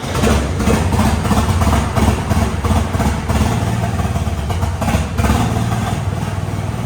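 John Deere 5305 tractor's three-cylinder diesel engine idling steadily just after a cold start.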